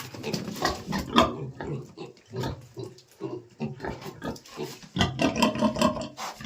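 Pigs grunting in many short grunts that follow one another rapidly, busiest and loudest about five seconds in.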